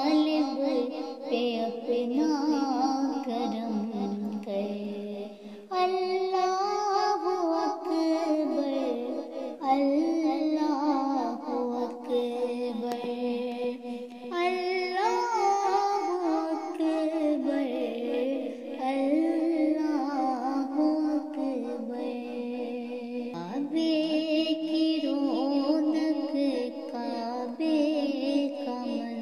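A solo voice singing a hamd, a devotional song in praise of God, in long, ornamented notes that glide up and down.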